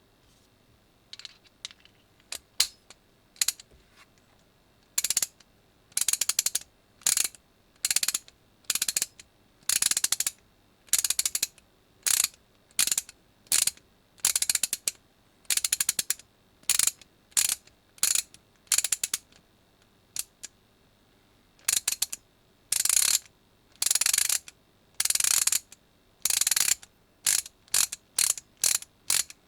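Mac Tools XR8PA 3/8-inch drive, 30-gear ratchet handle being swung back and forth, its pawl clicking over the gear in repeated short bursts. A few faint clicks come first, then steady bursts about one a second from about five seconds in, turning to quicker, shorter strokes near the end.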